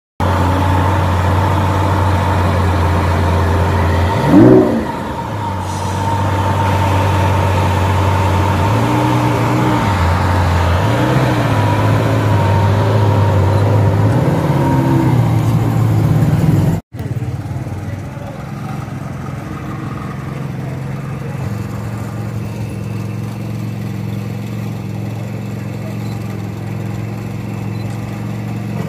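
Lamborghini Aventador SVJ's 6.5-litre V12 idling, revved hard once about four seconds in, then given three shorter throttle blips. After a cut, a quieter steady engine idle carries on.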